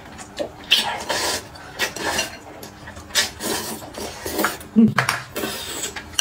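A person slurping noodles and broth from a bowl held to the lips, about five separate noisy slurps.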